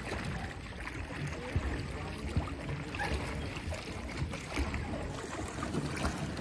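Water splashing and churning alongside a pedal-driven paddle boat as it is paddled along the river, with a steady low rumble and a few light knocks.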